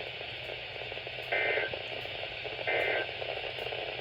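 Radio hiss, with two short buzzy data bursts of an Emergency Alert System end-of-message signal: digital SAME code squawks, each a fraction of a second long and about a second and a half apart, marking the end of the alert.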